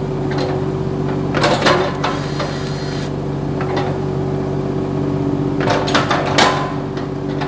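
Kubota U27 mini excavator's diesel engine idling steadily, with two short bursts of a grease gun pumping grease into a fitting, about a second and a half in and again near six seconds.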